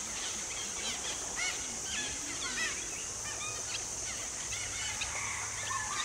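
A feeding flock of green pigeons and grey pigeons calling, a dense chatter of many short overlapping whistled and chirped notes. Low wavering notes sound in the first half, and a steady high hiss runs underneath.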